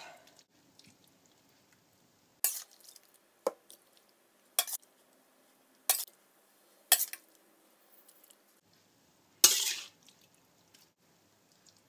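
Serving utensil knocking and clinking against a pan and plate as pasta is dished up: six separate knocks about a second apart, the loudest near the end.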